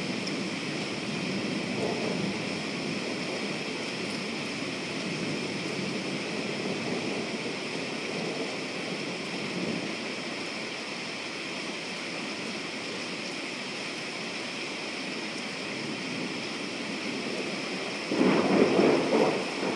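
Steady rain falling at night. Near the end a sudden, louder rumble of thunder comes in over the rain.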